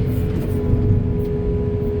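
Backhoe's diesel engine running under load, a heavy low rumble with a steady whine held over it.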